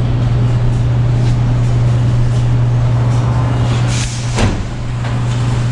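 Loud, steady machine drone with a constant low hum in a chassis-dyno shop, from the car and dyno equipment running. A brief clatter comes about four seconds in.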